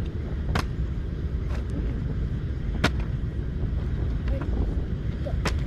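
Water bottle knocking down three times after being flipped, the loudest knock about midway. A steady low rumble runs underneath.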